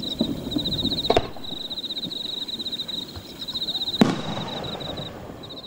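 Two booms from aerial fireworks shells, about one second in and about four seconds in, the second the louder, over a steady pulsing chirp of insects.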